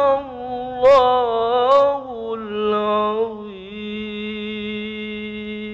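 A man's voice chanting Quranic recitation (tilawah) in a melodic style, drawing out a vowel with small ornamental turns in pitch. The pitch steps down about two seconds in, and the voice then settles into one long, steady held note.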